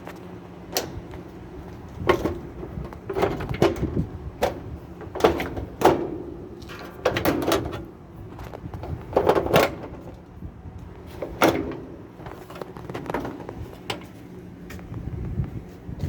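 Irregular knocks, clicks and rattles of a Roper top-load washing machine's cabinet and console parts being handled and worked loose, some with a short ring, over a steady low hum.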